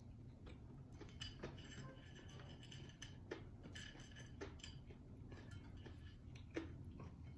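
Faint eating sounds: scattered small clicks and crackles as fried banana fritters are pulled apart by hand and chewed, the sharpest click about six and a half seconds in.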